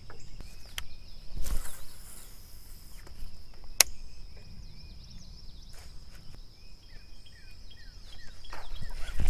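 A steady, high insect drone with short bird chirps repeating over it, broken by a few light knocks and one sharp click about four seconds in. Near the end a rush of noise rises.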